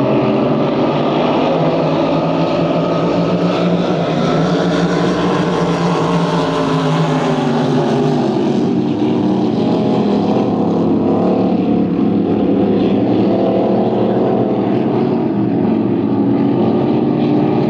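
Several K-class racing boats' engines running hard in a pack. Their overlapping tones rise and fall as the boats pass.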